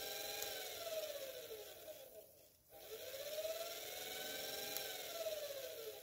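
Brushed universal motor from an automatic washing machine running at low speed on a 12 V battery, turning in reverse after its brush leads were swapped. Its whine sags and rises in pitch, cuts out briefly about two and a half seconds in, then picks up again.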